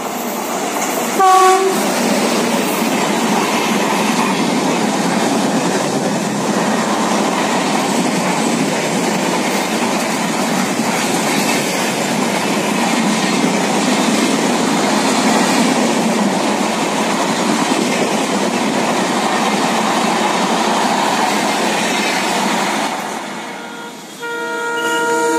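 A passenger train passes close by, with a brief horn blast about a second in and then a steady rumble and rattle of coaches rolling over the rails for about twenty seconds before it fades. After a sudden cut near the end, an approaching Indian Railways diesel locomotive sounds its horn, a chord of several tones held steady.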